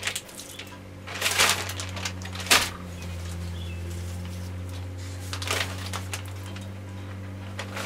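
Plastic zip-top food bags rustling and crinkling as raw pork roast is handled into them, in short bursts about a second in and again near six seconds, with a sharp knock at about two and a half seconds. A steady low hum runs underneath.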